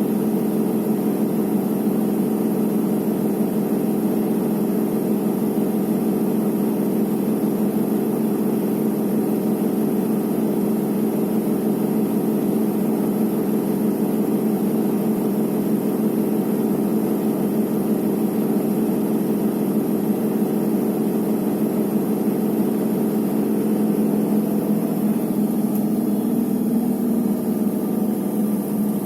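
Electrolux EWT 1377 VIW top-loading washing machine spinning, its drum motor giving a steady, loud hum. About 24 seconds in the pitch shifts slightly and the sound gets a little quieter.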